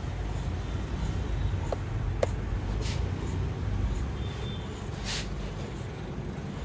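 Large steel tailor's shears cutting through woollen suiting cloth: a few brief crisp snips of the blades and a couple of sharp metallic clicks, over a steady low rumble.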